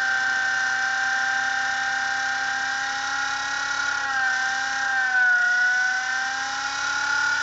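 Blade mCP X micro collective-pitch helicopter's electric motors and rotors spun up, a steady high whine that dips slightly in pitch about four seconds in and rises back near the end.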